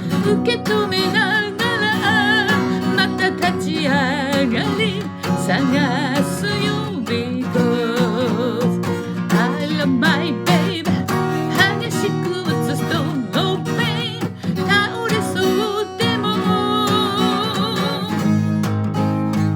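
Acoustic guitar strummed steadily while a voice sings over it with a clear vibrato on held notes.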